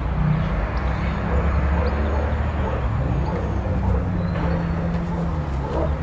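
Steady low rumble with a faint hum running under it, unchanging throughout.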